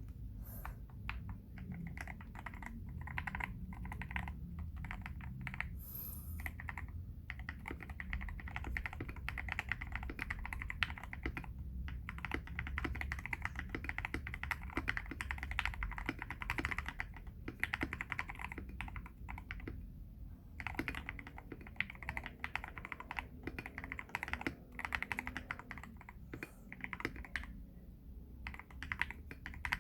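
Typing on a KBD67 Lite R3 mechanical keyboard with lubed Everglide Aqua King 62 g linear switches and PBT XDA-profile keycaps: fast runs of keystrokes, broken by short pauses a few times.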